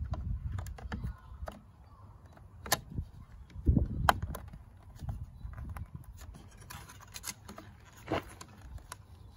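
Hard plastic clicking and light scraping as a replacement side indicator lens is worked and pressed into a Ford Focus wing mirror housing. Irregular sharp clicks are scattered through, the loudest a little before and after four seconds in.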